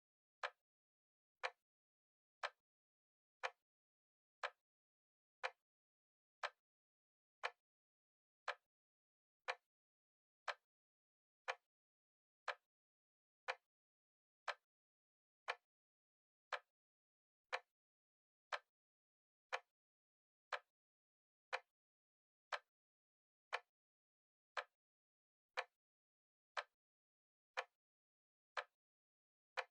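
Clock-style ticking from a countdown timer: one short, sharp tick every second, perfectly regular, with near silence between ticks.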